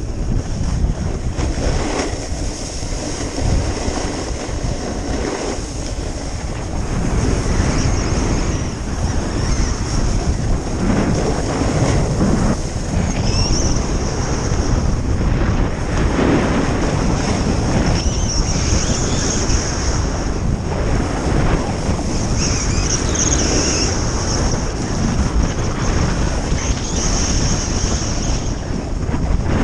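Wind buffeting a camera microphone during a descent down a groomed ski run, a steady low rumble, with the hiss and scrape of edges on packed snow flaring up now and then, most often in the second half.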